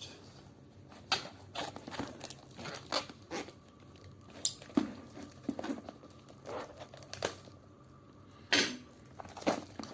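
Ready-meal packaging crinkling and tearing as it is unwrapped by hand: irregular crackles with a couple of louder, sharper snaps.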